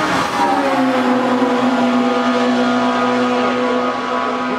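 Open-cockpit hillclimb racing car's engine at high revs passing close by. Its note falls as it goes past, then holds steady and fades slightly as the car carries on up the road.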